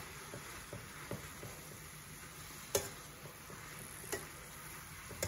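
Chopped covo greens sizzling gently in oil in a stainless steel frying pan while being stirred with a spoon. The spoon clicks against the pan a few times, most sharply almost three seconds in and again about four seconds in.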